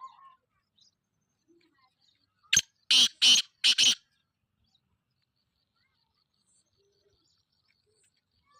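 Black francolin calling: one harsh, grating call of four loud notes in quick succession, about two and a half seconds in.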